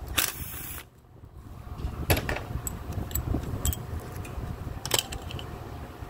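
A cordless power tool spins out one of the range sensor's small bolts in a short burst just after the start. Then come scattered metallic clicks and clinks as the loose bolts and the plastic range sensor are handled on the aluminium transmission case, over a low background rumble.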